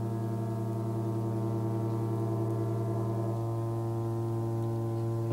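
Several ships' horns sounding together in long held blasts, making a steady low chord; one horn stops about three seconds in and the chord changes. They are sounded as a memorial salute to the ship bringing the disaster victims home.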